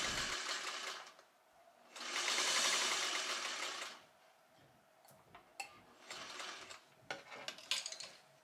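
Sewing machine stitching through two layers of denim in short runs: it trails off over the first second, then runs steadily again for about two seconds. After that come a few light clicks and taps as the machine and fabric are handled.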